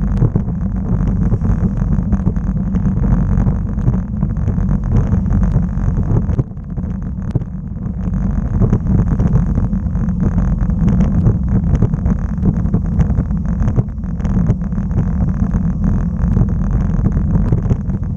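Wind buffeting the microphone of a bicycle-mounted action camera while riding: a loud, steady low rumble with scattered small clicks, easing briefly about six seconds in.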